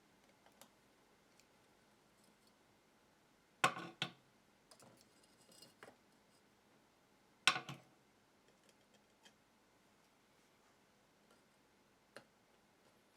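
Scattered clinks and clatters of small metal tools being handled and set down on a jeweller's workbench, with two louder clatters about four and seven and a half seconds in and faint tinkling between them.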